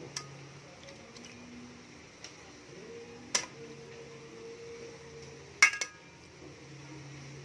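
Metal kitchen tongs clinking against a steel pot while turning pieces of corn in water: a few sharp clinks, the loudest a quick pair a little past halfway.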